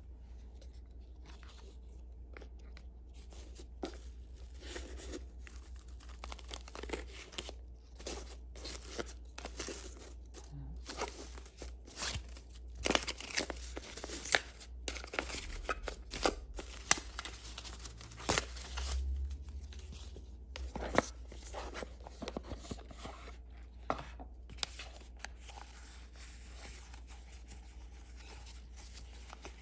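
Paper and ribbon rustling and crinkling as a Chanel gift box is unwrapped and opened by hand: irregular short rustles, tearing-like scrapes and light taps of cardboard, busiest in the middle, over a steady low hum.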